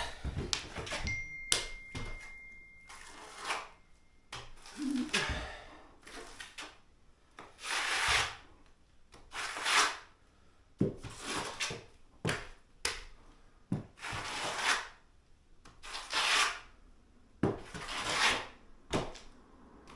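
A trowel spreading and scraping wall adhesive across a wall in repeated strokes, roughly one every second or two.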